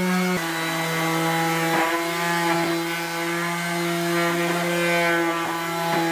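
Electric sheet sander running steadily with a constant motor hum, its sandpaper pad rubbing over an old wooden board.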